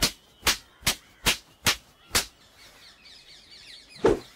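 A cloth being whipped through the air, snapping sharply about twice a second, six times, then stopping. Faint birds chirp after that, and one louder swish comes near the end.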